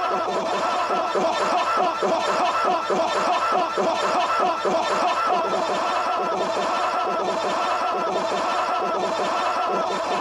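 Eerie sound-design ambience: a dense, unbroken layer of wavering, voice-like sounds over a steady low hum, at an even level.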